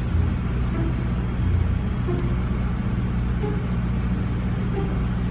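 A steady low mechanical hum, engine-like, with a few faint clicks.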